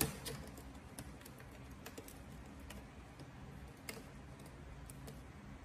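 Scattered small clicks and taps of fingers handling the parts and frame of an opened iPad, with a sharper click right at the start and another about four seconds in.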